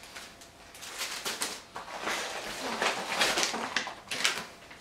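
Plastic wrapping of small diaper sample packs crinkling and rustling as it is handled, in irregular bursts of crackle.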